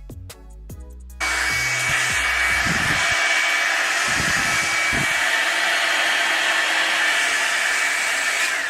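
Revlon One-Step hair dryer brush switched on about a second in, blowing a steady loud rush of air with a faint whine. Near the end the sound dies away and the whine slides down in pitch as it is switched off.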